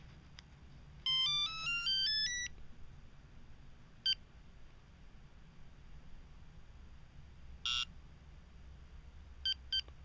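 Viper 5902 two-way car alarm remote's built-in speaker playing its demo-mode alert tones: a quick rising run of stepped beeps about a second in, then a single short beep, a brief chirp, and two short beeps near the end.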